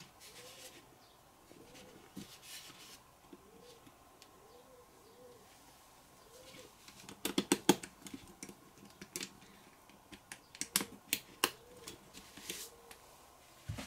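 LEGO Technic plastic parts clicking and snapping as they are fitted together by hand: a quick cluster of sharp clicks about seven seconds in, and another run of separate clicks a few seconds later, with lighter handling taps in between.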